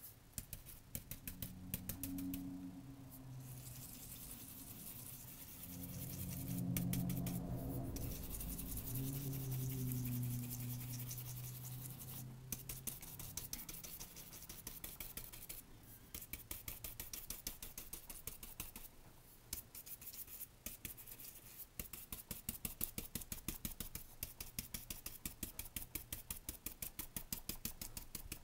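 Fluffy ink blending brush rubbed quickly over cardstock, a fast run of soft scratchy brushing strokes, many per second, most even in the second half.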